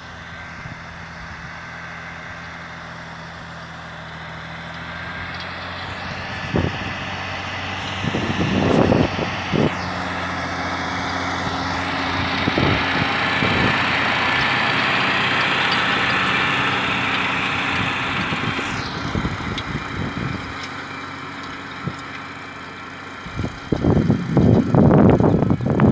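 Zetor tractor's diesel engine running steadily as it pulls a seedbed harrow across tilled soil, growing louder as it passes close and fading as it moves away. Irregular loud rumbling near the end.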